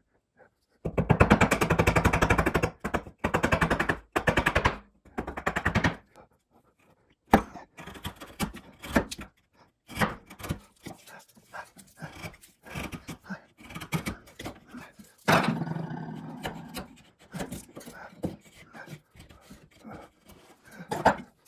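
Hand chisel paring waste from a pine dovetail joint. Near the start comes a few seconds of loud, rapid rattling, then scattered clicks, taps and scrapes of the steel blade on wood.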